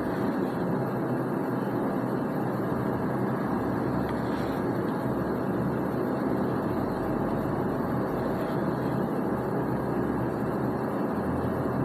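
Steady, even background noise with no speech, unchanging throughout.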